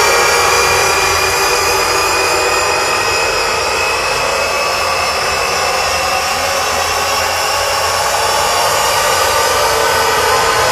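Loud electronic drone played through a concert sound system: a dense, steady wall of noise with many held tones, one high tone gliding slowly upward, over a low hum.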